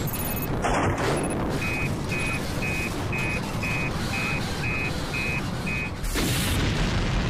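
Dramatised sound effects for the shuttle orbiter's break-up: a continuous low rumbling noise, with a run of nine short high electronic beeps at about two a second in the middle, and a sudden burst of noise about a second in and another near the end.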